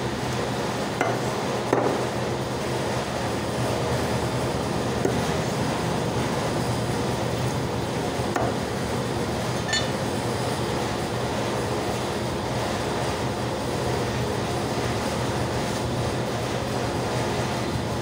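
A steady machine drone with a low hum throughout. A few sharp knocks cut through it in the first half, the first two about a second in as a cleaver strikes a chopping block.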